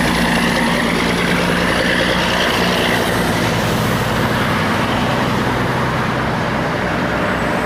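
Heavy truck traffic driving past, a steady loud mix of diesel engine and tyre noise.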